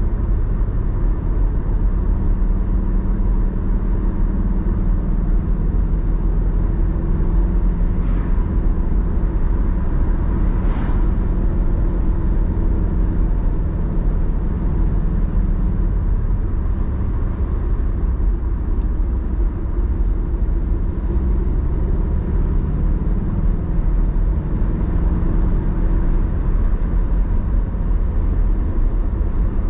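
Car driving along a road, heard from inside the cabin: steady low engine and tyre rumble with a faint steady high tone. Two brief hissing sounds come about eight and eleven seconds in.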